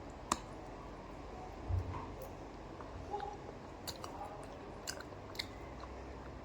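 A person chewing pasta with their mouth close to the microphone, with a few sharp clicks and a short low thump.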